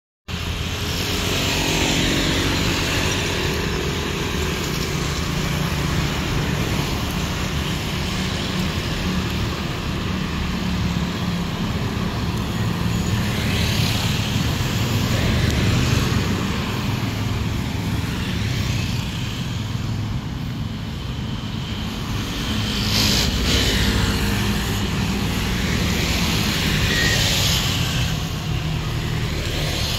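Town road traffic: cars and motor scooters passing one after another, each swelling and fading, over a steady low rumble.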